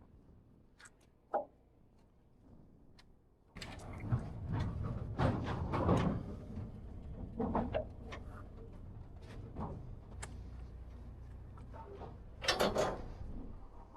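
Metal knocks and clatters, a door or latch being worked, with a low rumble that starts suddenly about three and a half seconds in; the loudest clatter comes near the end.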